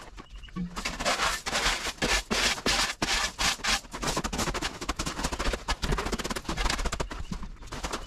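Loose gravel crunching and stones clattering in quick, irregular clicks as it is stepped on and handled around a plastic sump pit.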